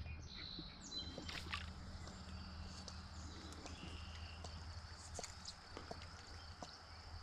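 Faint outdoor creek ambience: a steady low rumble with light water sloshing and scattered small clicks, and faint high chirping calls, a few gliding near the start.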